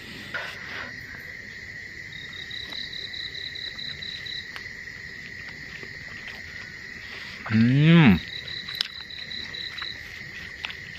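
Crickets trilling steadily at night, with a second insect's faster pulsed trill coming in twice. About seven and a half seconds in, a man gives a short low hum that falls in pitch.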